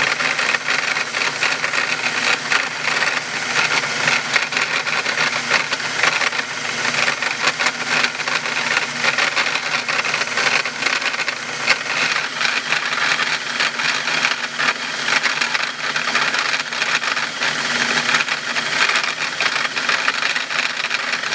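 Bench drill press running, with a small pilot bit boring a centring hole into a piece of bronze: a steady, loud mechanical buzz with fine rattling chatter throughout.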